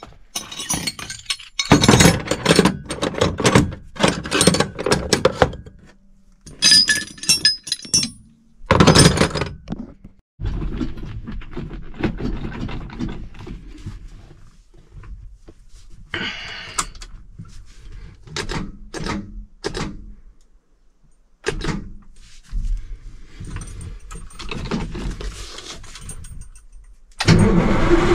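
Irregular metallic clanking, knocking and jangling of tools and parts during work on a truck, coming in bursts with short pauses. Near the end an engine starts up and runs steadily.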